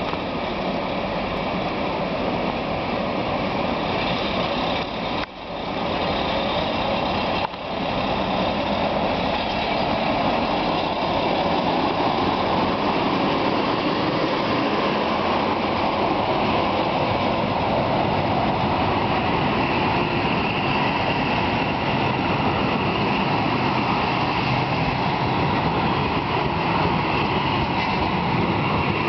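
Vintage SJ Ra-class electric locomotive Ra 846 passing close by with a train of passenger coaches: a loud, steady rolling noise of the locomotive and coaches running on the rails.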